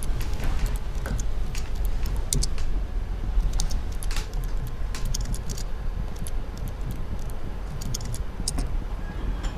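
Typing on a computer keyboard: quick, irregular key clicks in short runs, over a steady low rumble.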